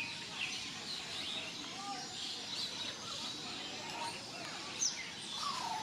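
Many birds chirping and calling at once over a steady background hiss, short whistled notes overlapping throughout, with one louder high, falling whistle near the end.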